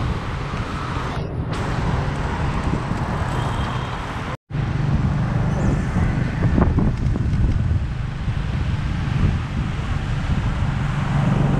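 Wind buffeting a bike-mounted action camera's microphone while riding, over steady city traffic noise. The sound cuts out completely for a split second about four seconds in.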